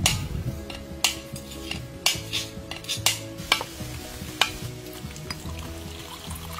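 Cleaver blade knocking sharply on a husked mature coconut's hard shell, about once a second, to crack it open; the strikes thin out near the end as the shell splits.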